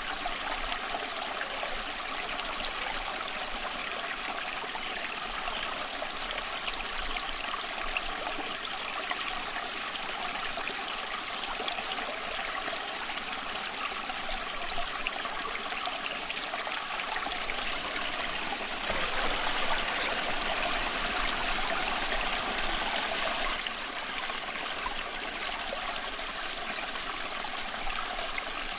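Stream water flowing and trickling steadily, a little louder for a few seconds just past the middle.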